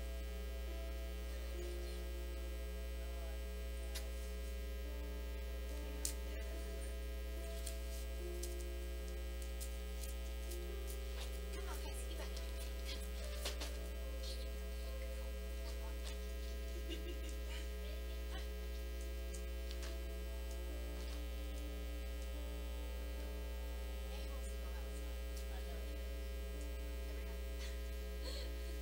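Steady electrical mains hum, with a few faint clicks about six and thirteen seconds in.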